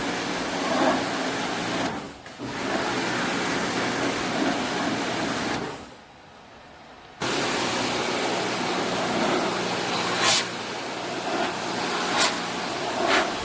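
Steady rushing machine noise that dips briefly about two seconds in, cuts out for about a second and a half near the middle, then starts again abruptly, with a few short sharp sounds near the end.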